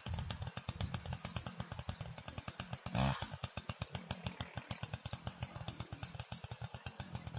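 Stihl FS 490 brushcutter's two-stroke engine running at low speed, a fast even pulsing, with one short louder burst about three seconds in.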